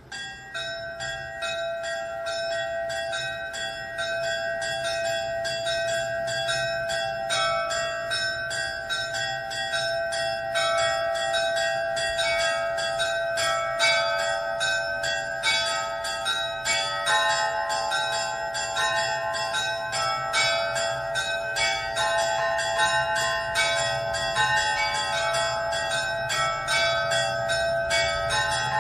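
Church bells ringing a continuous peal, several bells struck in quick succession with the pattern of notes shifting every few seconds; it swells up over the first few seconds.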